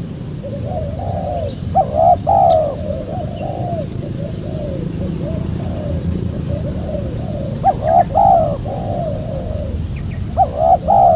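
Spotted dove (tekukur) cooing: three phrases of a few sharp, loud coos trailing into softer ones, about two, eight and ten seconds in, with quieter coos between. A steady low hum lies under the song.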